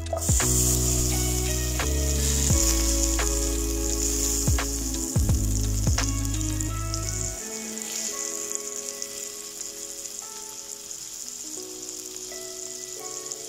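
Butter sizzling as it melts in a hot frying pan, the sizzle starting suddenly as the butter goes in. Background music plays over it, its bass part dropping out about halfway through.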